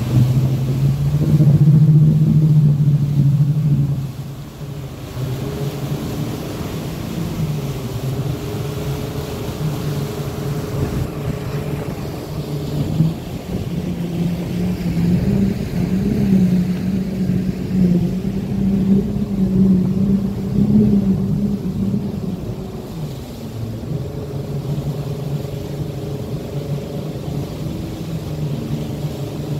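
Yamaha outboard motors running on a river boat, the engine note rising and falling with the throttle while the boat works through shallows where the engines touch the bottom. Loudest for the first few seconds, then easing off about four seconds in.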